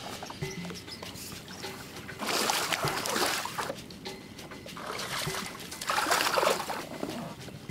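Shallow water splashing and sloshing around a man's legs and a bass boat's hull as he wades and pushes the grounded boat off the mud. The splashing comes in two spells, one about two seconds in and a longer one around five to seven seconds in.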